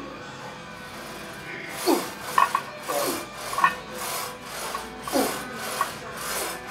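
A lifter's rapid, rasping breaths, about two a second, through a face covering under a heavy leg-press set, with a few short strained groans that fall in pitch.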